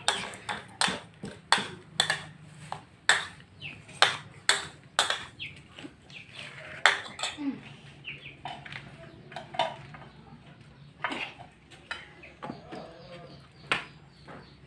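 Sharp clinks and clatter of crockery and a metal cooking pot and lid being handled. The clinks come thick and fast at first and thin out from about halfway through.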